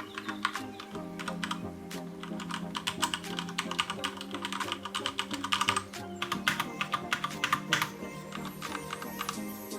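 Rapid, irregular keystroke clicks on a Cherry MX Board 3.0S mechanical keyboard fitted with Cherry MX Silent Red switches, over background music with sustained notes.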